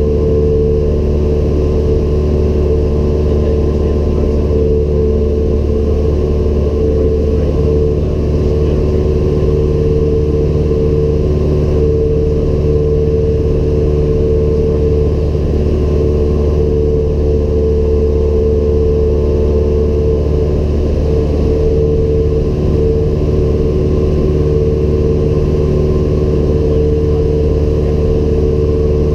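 Cessna 172M Skyhawk's four-cylinder Lycoming engine and propeller droning steadily in flight, heard inside the cockpit.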